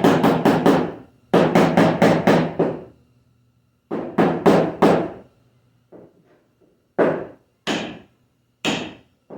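Rapid light hammer taps on wood, driving a glued piece back into its groove: three quick runs of about six taps a second, then a few single taps near the end.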